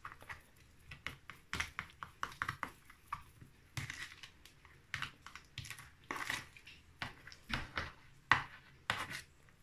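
Metal fork stirring soft butter in a plastic tub: irregular clicks and short scrapes as the fork knocks and drags against the container's sides.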